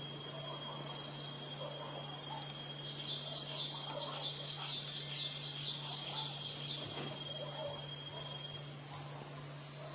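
A songbird sings a run of about eight quick, repeated high notes, starting about three seconds in and lasting a few seconds. Under it are a steady high insect drone and a low steady hum.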